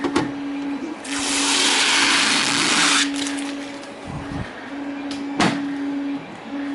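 Packaging being handled: a rustling rush for about two seconds, with sharp knocks near the start and about five seconds in, over a steady low hum.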